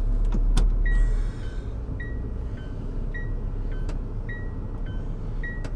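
A repeating two-note electronic chime, a higher tone followed by a slightly lower one, sounding about once a second over a steady background hum that drops in level about a second in.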